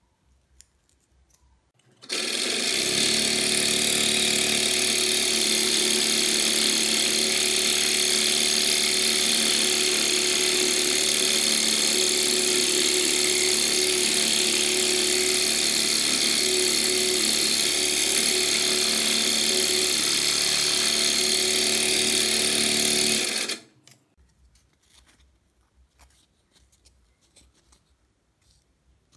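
Homemade scroll saw running, its 775 12 V DC motor driving the blade through a toothed belt while the blade cuts through a thin wood sheet. It starts abruptly about two seconds in, runs at a steady level, and stops abruptly a few seconds before the end.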